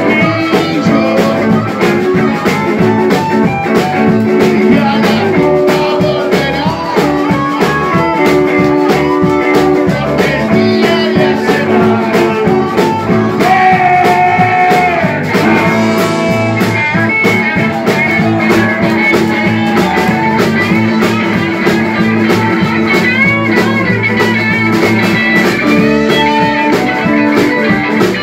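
Live rock band playing: electric and acoustic guitars over a drum kit, loud and continuous.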